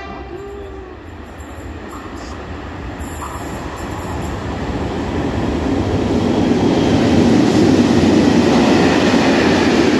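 Freight train hauled by an E483 electric locomotive with hopper wagons rolling through the station. The rumble of wheels on rails grows steadily louder as it approaches, then holds steady from about seven seconds in as the wagons pass.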